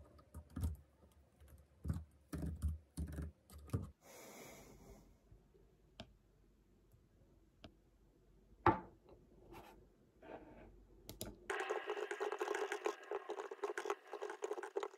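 Typing on a computer keyboard: scattered keystrokes at first, a single sharper click about two-thirds of the way through, then fast continuous typing from about 11 seconds in.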